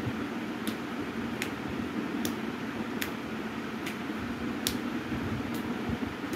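Steady background hum with a sharp, regular tick a little faster than once a second.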